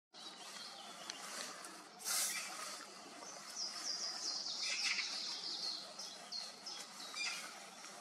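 Common chiffchaff singing, a run of short high notes stepping up and down in pitch from about three and a half seconds in. There is a brief harsh noisy burst about two seconds in.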